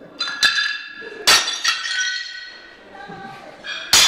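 Ceramic wall tiles smashing on a concrete floor: several sharp crashes, one after another, each followed by the ringing clink of shards scattering.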